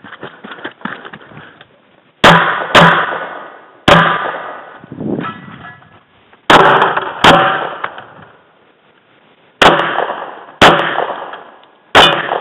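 Handgun shots, eight in all, fired at irregular spacing with some closely paired. Each sharp crack is followed by a long echoing tail.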